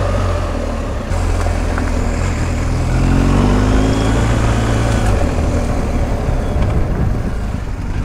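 BMW R1250 GS Adventure's boxer-twin engine running under way, with the pitch rising as it pulls harder about three seconds in.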